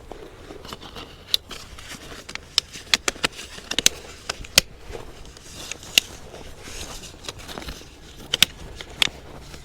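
Drain pipe sections being handled and fitted into a union coupling: irregular sharp clicks, knocks and scrapes.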